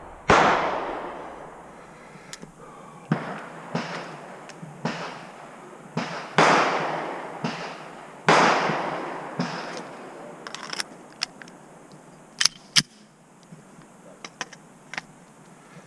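Pistol shots on a shooting range, irregularly spaced: three loud shots with long echoing tails and a scatter of fainter, more distant shots in between.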